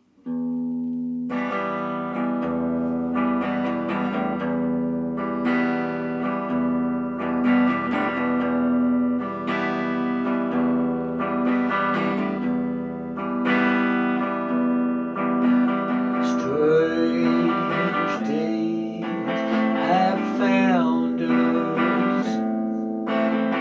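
Guitar playing an instrumental song intro: plucked and strummed chords over a steady held low note, starting abruptly about half a second in. Gliding pitched lines join over the last several seconds.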